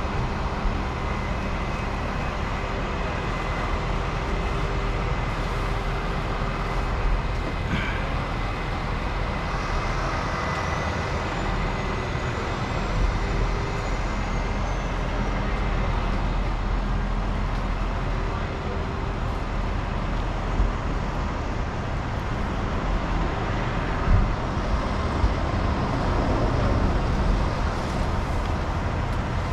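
Steady engine noise with a faint steady hum, running without a break.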